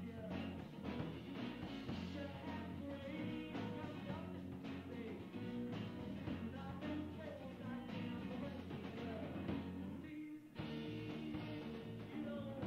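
Rock band playing with drums and a singer, sounding muffled. The music drops out for a moment about ten and a half seconds in.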